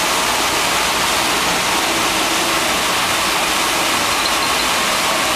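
84-inch Blanchard rotary surface grinder running: the grinding wheel works a large metal plate on the turning table under a flood of coolant. The sound is a steady, unbroken hiss and rush.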